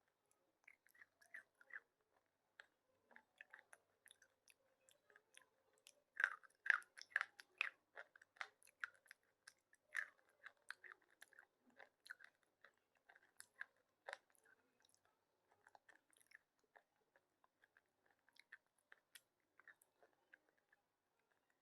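Soft slate pencil being bitten and chewed, a run of small crisp crunches. The crunches come thickest and loudest about six to eight seconds in.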